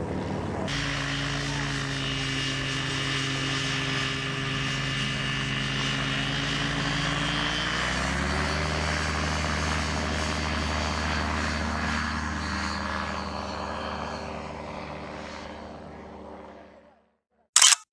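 Ultralight trike's propeller engine running steadily. Its pitch rises about eight seconds in, as the throttle opens for the takeoff run, and the engine then fades away as the trike climbs out. A brief sharp click comes just before the end.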